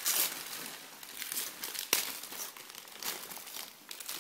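Wrapping paper being torn and crumpled by hand as a gift is unwrapped, with a sharp click about two seconds in.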